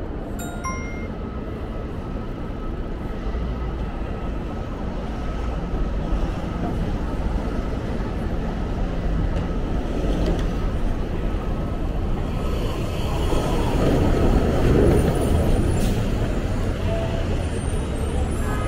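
Steady Manhattan street traffic heard from a moving bicycle: the running engines and tyres of cars, trucks and buses, with a faint steady high tone through much of it. It swells louder about two-thirds of the way through.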